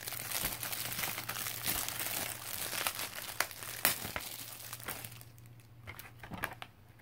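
Plastic shrink wrap crinkling and crackling as it is torn and peeled off a DVD case, dense for about five seconds, then sparser crinkles and clicks.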